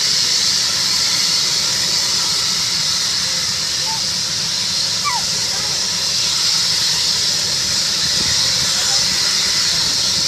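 Irish Coast Guard Sikorsky S-92 helicopter running on the ground before takeoff, its turbine engines and rotors making a loud, steady hiss.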